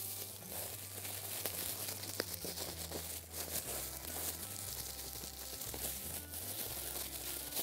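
Plastic bag crinkling and rustling as it is shaken and squeezed with kofta meatballs and flour inside, dusting the meatballs in flour.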